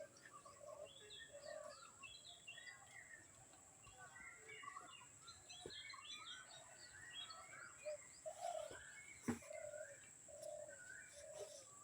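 Faint birdsong: many short chirps and calls from several birds, with a repeated lower call throughout and two sharp clicks, one about halfway through and one later.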